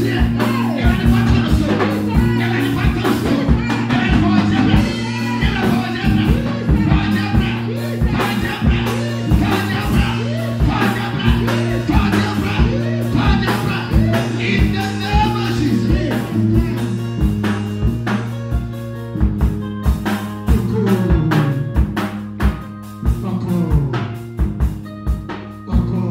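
Live church band music: electronic keyboard holding steady chords over a drum kit keeping a steady beat, with voices singing into a microphone. The singing thins out about two-thirds of the way through, leaving mostly keyboard and drums.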